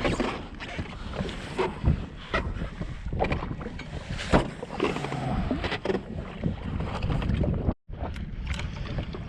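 Wind on the microphone and water around a jet ski, with scattered knocks and clicks of handling on board. The sound cuts out for a moment near the end.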